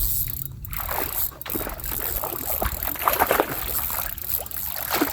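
Water splashing and sloshing irregularly, over a steady low rumble of wind on the microphone.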